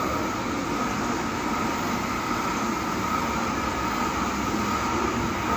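Shinkansen bullet train running past, a steady rumbling rush of wheels on rail with a steady high whine over it.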